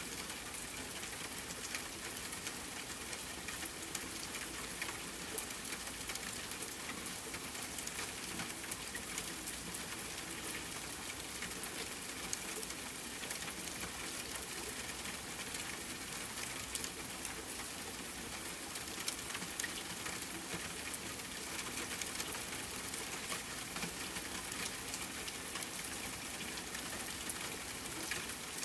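Steady rain falling, an even hiss with many fine drop ticks throughout.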